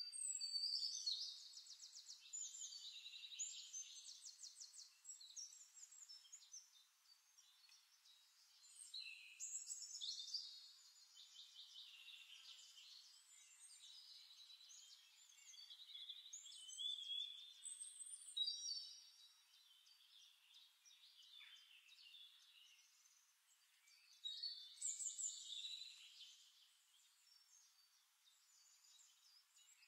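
Faint, high-pitched birdsong: chirps and rapid trills coming in several bouts, with quieter gaps between them.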